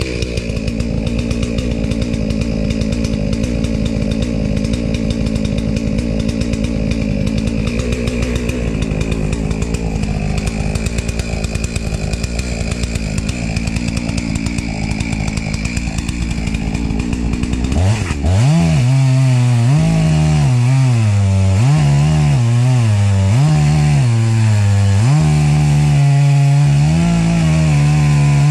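Jonsered 670 two-stroke chainsaw running loud under load. About two-thirds of the way in, the sound changes sharply to the saw at high revs, its pitch dipping and recovering again and again as it cuts into the wood, then holding steady near the end.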